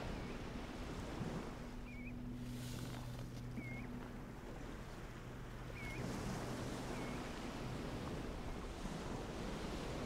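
Wind and surf noise on an open shore, with a low steady engine hum, likely a distant boat, from about a second in until past the middle. Five short whistled bird call notes come through it, spaced a second or two apart.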